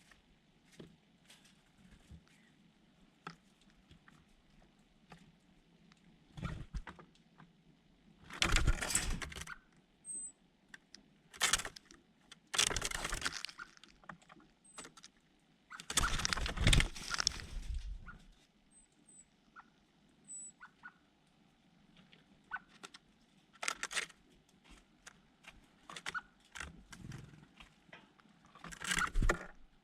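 Small birds close to the microphone: a scatter of light taps and clicks, several loud rustling bursts of a second or two, and a few brief, faint high chirps.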